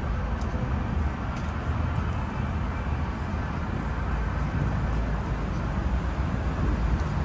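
Steady low rumble of traffic crossing the Manhattan Bridge.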